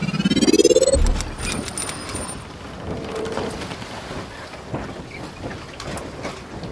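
Logo intro sound effect: a rising whoosh over about a second that ends in a low boom, then a hissing, fizzing texture with scattered clicks and a few brief high ringing tones, slowly dying down.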